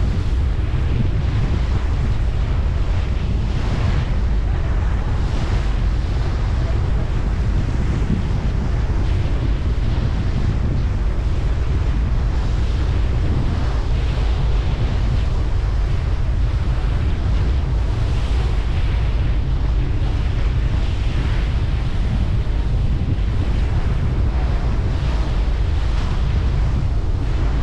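Steady wind buffeting the microphone over the rush of water from a Staten Island ferry under way.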